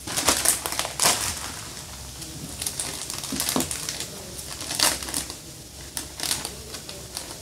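Plastic vacuum storage bag crinkling and crackling as it is handled while a hanger is fitted into it, with irregular sharp clicks and snaps of plastic.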